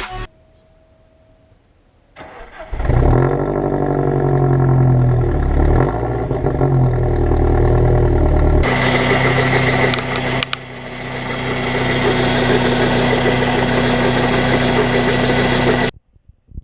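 Mercedes CL200 Kompressor's supercharged four-cylinder engine cranking and starting about two seconds in, its revs rising and falling, then running on. Near nine seconds in the sound changes abruptly to a brighter steady running note that lasts until it cuts off near the end. The engine has a knocking noise that the owner traced to a broken water pump.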